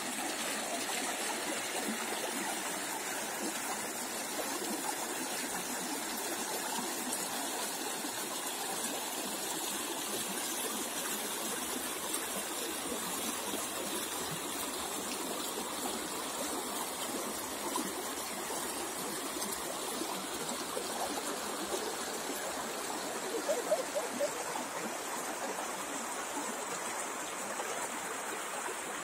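Shallow river running fast over a pebble bed, giving a steady rushing, babbling water noise. A few brief louder sounds stand out about four-fifths of the way through.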